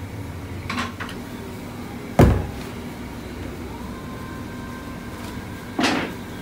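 Three thumps over a steady low hum. The second, about two seconds in, is the loudest and deepest, and the third comes near the end.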